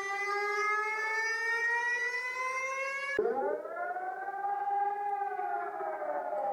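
Emergency-alert style siren. A buzzy tone with many overtones rises slowly in pitch, then about three seconds in it is cut off by a siren that winds up quickly, holds, and begins to wind down near the end.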